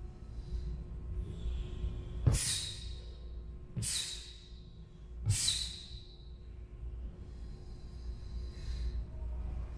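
A taekwondo practitioner's sharp, hissing exhalations, three of them about a second and a half apart, each timed to a technique and opening with a snap or thump. Fainter breaths come between them.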